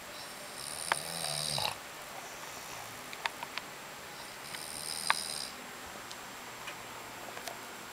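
Snoring: two snores about four seconds apart, each carrying a high whistle, the first also with a low rumble. A few faint clicks fall between them.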